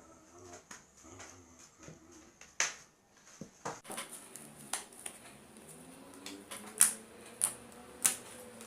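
Homemade slime being squeezed and stretched by hand, giving sharp sticky clicks and pops at irregular intervals.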